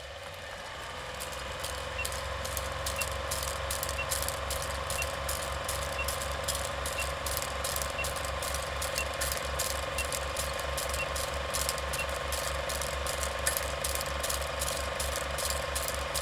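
Small drone's electric motors and propellers spinning up and then running steadily, a steady whine with a rapid regular ticking and a faint short beep about once a second.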